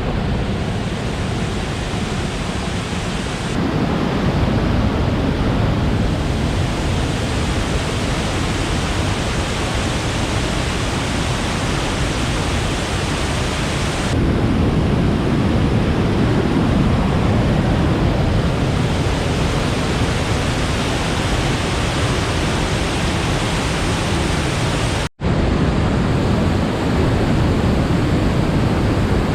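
Willow River waterfall: a loud, steady rush of falling water. Its tone shifts abruptly a couple of times, and it cuts out for an instant near the end.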